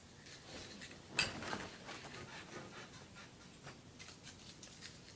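Faint rubbing and small ticks of fingers pushing chewed paper into a small plastic object, with one sharper click about a second in.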